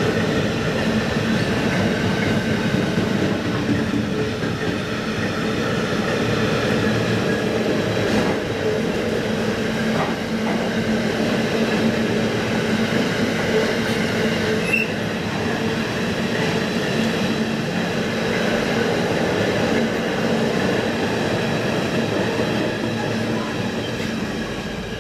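Freight train of empty double-deck car-transport wagons rolling past close by: a steady rumble and clatter of wheels on the rails, with a steady ringing tone from the wheels. The sound fades near the end as the last wagon goes by.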